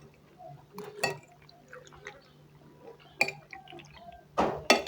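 Eating at a table: a few scattered clicks and taps of cutlery on a plate and wet mouth sounds, the loudest about a second in and just before the end, over a faint steady hum.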